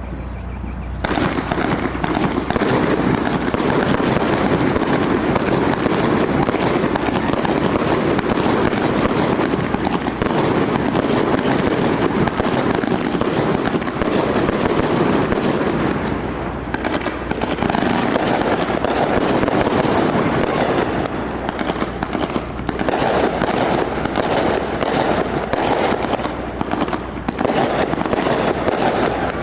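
Fireworks display: a dense, continuous barrage of bangs and crackles that steps up in loudness about a second in.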